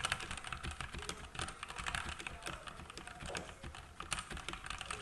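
Fast, continuous typing on a HUO JI E-Yooso Z-88 mechanical keyboard with linear red switches: a quick, irregular run of key clacks.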